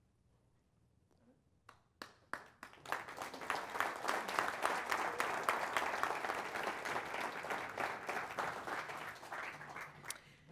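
Audience applauding: a few scattered claps about two seconds in, then steady applause from a room full of people that thins out near the end.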